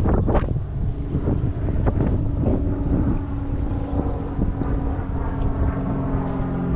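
Wind buffeting the microphone on a fishing boat. A steady boat-motor hum comes in about two and a half seconds in, and a lower second tone joins near the end.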